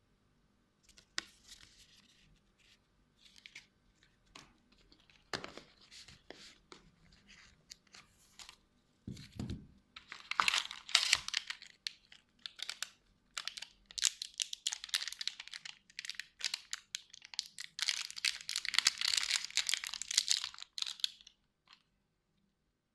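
Phone packaging being handled: scattered taps and clicks, then bouts of plastic and paper crinkling and tearing that grow loudest toward the end and stop shortly before it.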